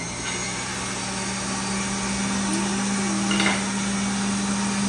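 Electric centrifugal juicer running, its motor giving a steady hum.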